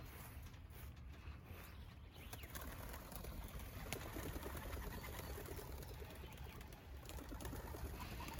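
Homing pigeons cooing faintly, with wing flaps as some take off from the loft's landing board.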